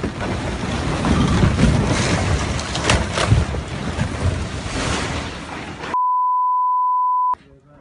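Rockfall: a loud, rumbling roar of tumbling rock with a few sharp cracks near the middle, dying away after about six seconds. A steady one-pitch censor bleep follows for about a second and a half.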